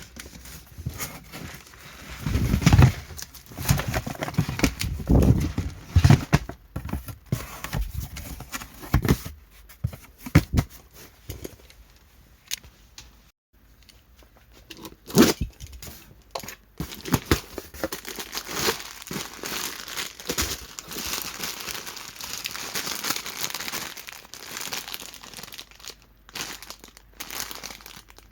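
Instant-noodle packaging being handled and torn open: plastic crinkling and tearing. Irregular knocks and thumps run through it, heaviest in the first seven seconds or so.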